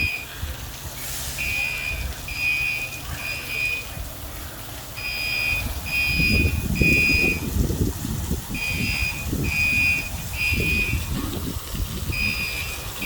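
Fire alarm sounding a high-pitched beep in repeating groups of three with a short pause between groups, the temporal-three evacuation pattern. A low rumbling noise rises underneath from about five seconds in.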